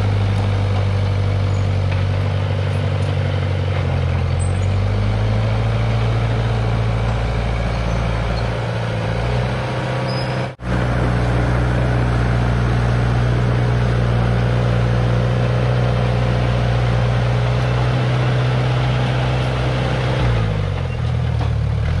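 Small crawler bulldozer's diesel engine running under load as it grades and pushes dirt, a steady loud drone whose pitch shifts twice. The sound cuts out for an instant about halfway through.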